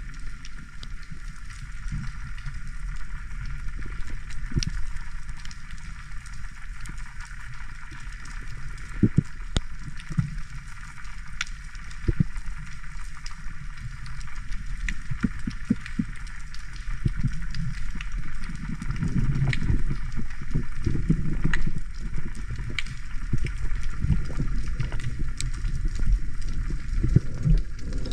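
Underwater ambience picked up by a camera while freediving: a low churning rumble of moving water with scattered sharp clicks and crackles over a steady hiss. The rumble is stronger in the second half.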